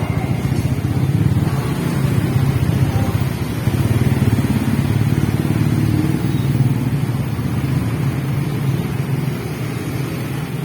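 Road traffic at a railway level crossing: motorcycle and car engines running and accelerating as they cross, a steady low engine rumble that eases slightly near the end.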